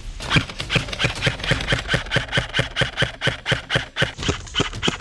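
Running footsteps, fast, even thuds about four a second.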